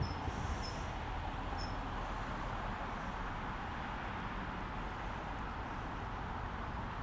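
Steady outdoor town background noise, an even hiss with a low rumble underneath, with a few short high bird chirps in the first two seconds.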